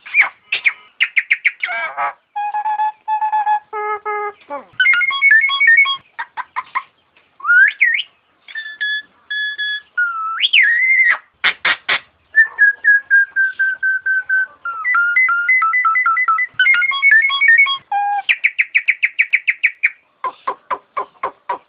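Nias hill myna calling: a loud, varied run of whistles, with rapid strings of repeated short notes, held whistled tones, rising glides and a few sharp clicks.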